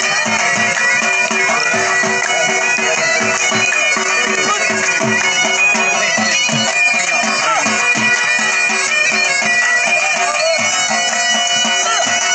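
Background music: a reedy wind-instrument melody over a steady drone, with a regular low beat.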